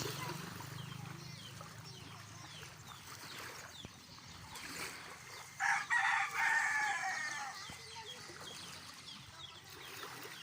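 A rooster crowing once, a loud call of about two seconds about halfway through, with faint high chirps throughout.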